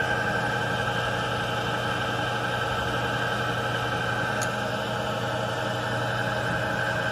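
RF-31 mill-drill running under power, its motor and spindle drive giving a steady hum with a high, even whine.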